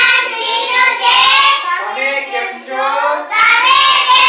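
A class of young children's voices in unison, chanting in a sing-song chorus, with drawn-out phrases broken by short pauses.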